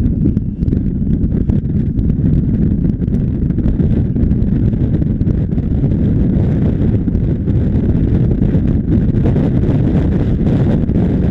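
Jet blast from an airliner taking off, heard from directly behind it: its jet engines at takeoff thrust in a loud, steady rumble, with the blast buffeting the microphone.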